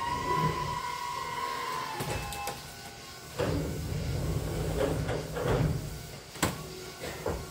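Keisei electric train heard from the driver's cab: a whine that falls slowly in pitch over the first two seconds, like the motors easing as the train slows, then a run of irregular clunks and knocks from the running gear and car body.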